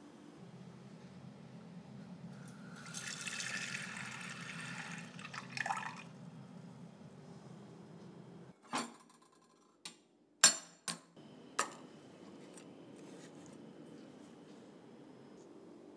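Water running from a tap for about three seconds, then a few sharp clinks and knocks of cups and utensils, the loudest about ten and a half seconds in, over a steady low hum.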